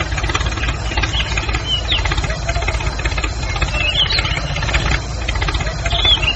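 Diesel tractor engine running steadily with a fast knocking beat, with short bird chirps coming and going above it.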